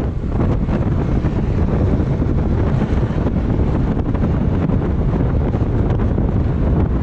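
Wind buffeting the microphone of a camera on a moving road bike: a loud, steady rush, deepest in the low end.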